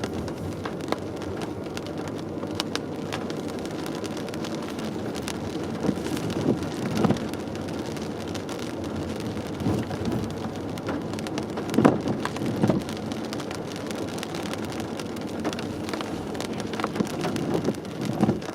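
Rain hitting a car's roof and windshield, heard from inside the cabin as the car drives slowly on wet pavement: a steady patter with a few louder knocks scattered through, the loudest about two-thirds of the way in.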